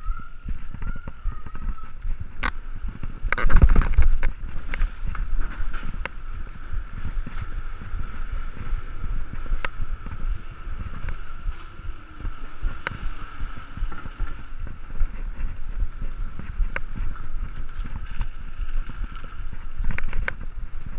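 Specialized Stumpjumper mountain bike ridden fast over hard ground, heard from the handlebars: a steady rattling rumble with scattered sharp knocks and one loud jolt about three and a half seconds in.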